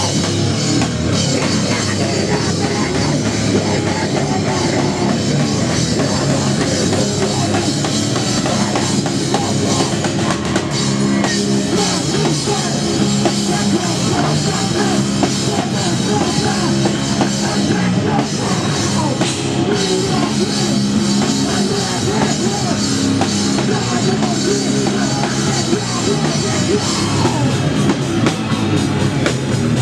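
Live rock band playing loud, with a drum kit and electric guitars going without a break.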